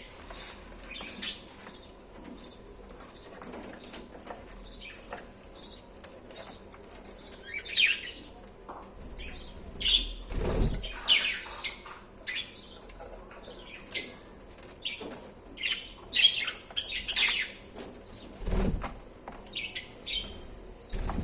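Pet budgerigars chirping in short, scattered high calls, with wings flapping, and two deeper rushes of sound, one about halfway through and one near the end.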